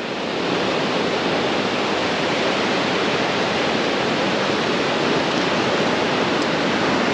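Steady wash of surf breaking on a sandy beach.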